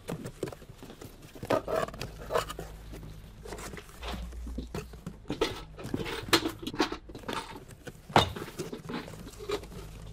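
Toys and shop items being rummaged through and handled: scattered knocks, clicks and rustles, with a few short squeaks mixed in.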